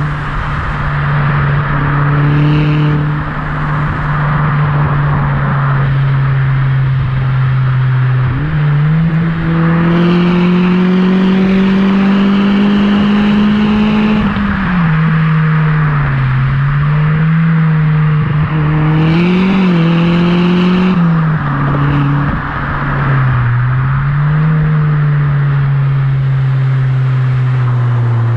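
Mitsubishi Colt CZT's turbocharged four-cylinder exhaust under way. The engine note holds steady, climbs slowly for several seconds about a third of the way in, drops back suddenly, then rises and falls with the throttle.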